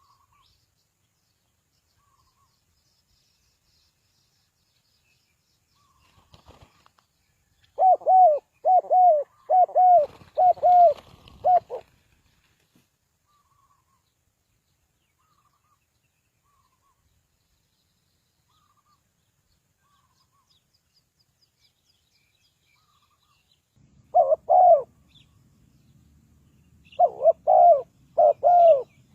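Spotted dove cooing in short runs of low, arched coos. There are about five coos in a row a few seconds in, with a brief rustling noise among them. After a long pause come two more bursts of coos near the end, over a low background noise.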